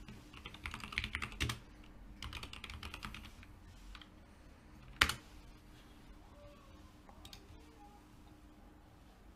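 Computer keyboard typing in two quick runs of keystrokes, then one sharp click about five seconds in, the loudest sound here.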